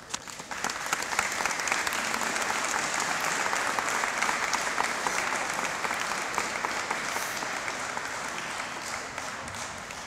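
Crowd applauding with many hands clapping, swelling just after the start, holding steady, then tapering off near the end.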